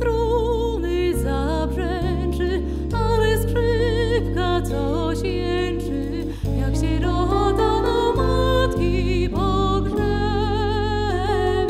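A woman singing with wide vibrato, accompanied by a Nord stage keyboard with a piano sound and an electric bass guitar.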